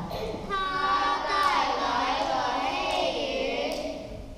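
Children singing a song, with long held notes and a short break between phrases near the end.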